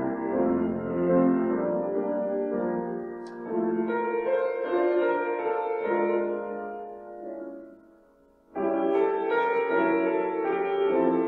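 Slow instrumental music on a keyboard, held chords that die away about eight seconds in before a new phrase comes in suddenly.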